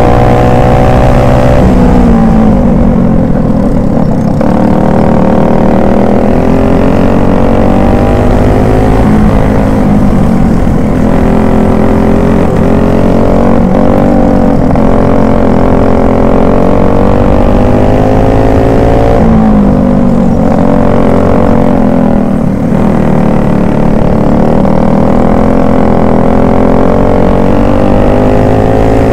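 Racing kart engine at full throttle, heard close from onboard: its pitch climbs steadily along the straights and drops sharply several times as the kart slows for corners, then climbs again.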